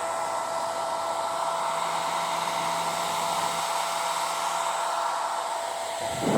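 Handheld hair dryer running steadily: an even motor whine over the rush of blown air.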